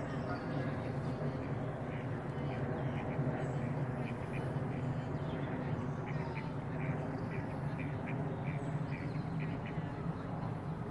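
Ducks quacking in a long run of short calls, several a second, over a steady low background rumble.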